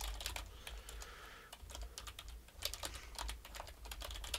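Typing on a computer keyboard: irregular key clicks, several a second.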